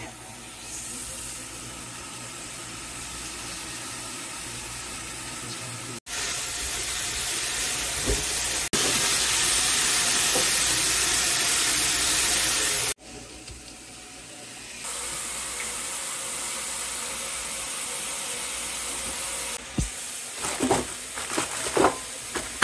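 Tap water running from a kitchen faucet into a speckled enamel roasting pan in the sink: a steady hiss, cut off and restarted several times and loudest in the middle. Near the end a few short knocks and rustles.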